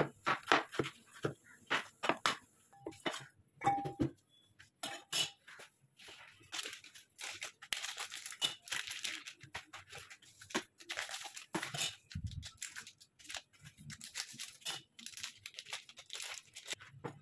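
A cleaver chopping potato on a wooden cutting board in a run of sharp knocks, then plastic paneer packets crinkling and tearing as they are snipped open with scissors and peeled off the blocks.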